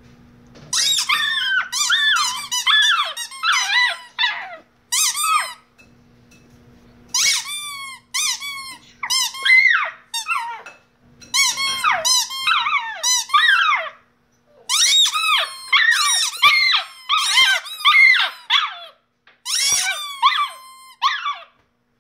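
Plastic squeaky dog toy squeaking over and over as a Shiba Inu puppy bites and chews it, in quick runs of high-pitched squeaks that bend in pitch, broken by short pauses.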